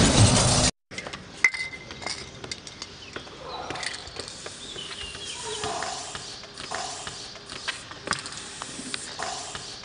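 Music cuts off abruptly under a second in. Then comes a quiet stretch of aerosol spray-paint can hissing against a wall, with scattered light clicks and taps.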